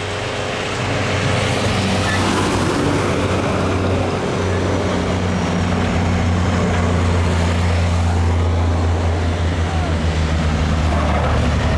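Heavy snowplow truck's engine passing close by, a deep steady drone that grows louder over the first couple of seconds and then holds, with a rushing hiss of snow being pushed by the plow blade.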